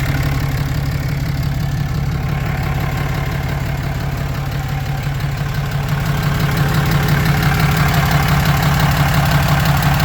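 2016 Cummins 6.7-litre inline-six turbo-diesel idling, with a fast, even knocking/clicking from under the engine that the owner is trying to track down. The sound gets louder about six seconds in.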